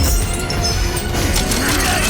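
Soundtrack music with a heavy low rumble, cut through by a few sharp hits and clashes.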